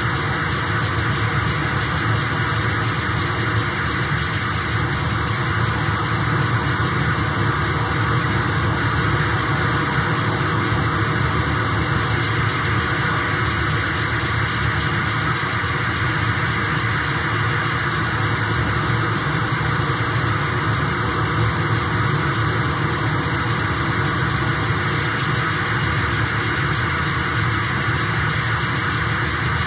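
A live electronic noise-music set: a loud, unchanging wall of harsh noise that neither swells nor breaks.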